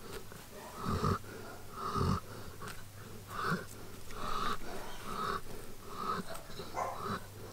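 An Old English Sheepdog breathing noisily in short, irregular puffs, about two a second, while hair is plucked from its ear. Two soft, low thumps come about one and two seconds in.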